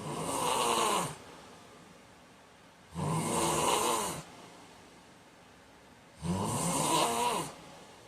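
A man snoring in his sleep: three even snores about three seconds apart, each lasting a little over a second.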